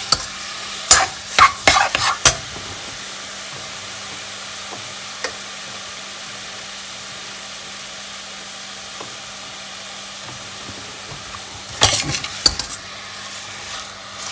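Raw chicken mince sizzling steadily in hot oil in a stainless steel pot. A metal spoon scrapes and knocks against the pot as the mince is broken up and stirred, in the first two seconds and again about twelve seconds in.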